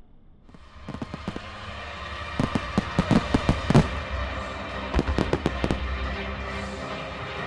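Fireworks display: crackle and low rumble start suddenly about half a second in, then rapid volleys of sharp bangs, densest from about two and a half to four seconds in and again around five seconds.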